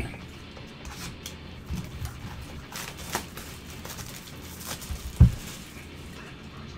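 A Topps Chrome baseball card box handled with gloved hands: scattered rustles and light taps of cardboard, with one louder thump about five seconds in.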